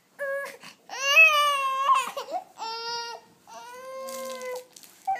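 Infant crying: about four high-pitched wails in a row, each up to about a second long, with short breaths between them.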